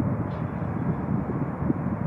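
Jet airliner engine noise: a steady, low-pitched rumble without distinct tones.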